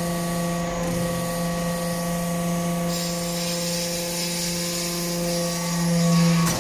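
Hydraulic metal-chip briquetting press running: its hydraulic pump gives a steady hum with a ladder of overtones. A high hiss joins about halfway through, and the hum swells briefly just before a click near the end.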